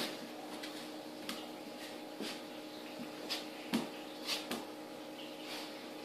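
A cat and a dog play-wrestling on a tile floor: a string of short scuffles, rustles and soft bumps, with a steady low hum in the background.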